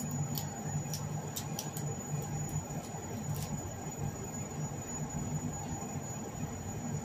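Gas burner heating a lidded pot of water that is not yet boiling: a steady low rumble. Light clicks of eggshell cracking and being peeled off hard-boiled eggs come through a few times in the first few seconds.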